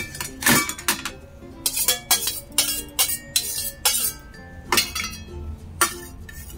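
Stainless steel bowl and spoon clinking and scraping against ceramic plates and bowls as dishes are cleared, in a string of irregular clinks.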